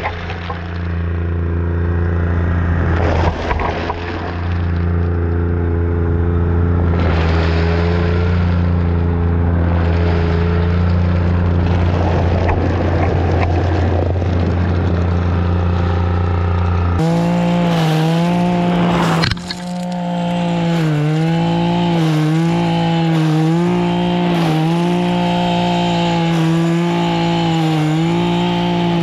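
Echo PAS-266 two-stroke power head running at high throttle, spinning the Pro Paddle power broom through loose driveway gravel. The engine note holds steady at first, then partway through it jumps and starts wavering up and down about once a second as the paddles bite into the stones.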